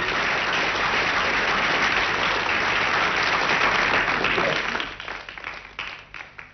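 Audience applauding. The clapping thins out after about four and a half seconds into a few scattered claps and dies away.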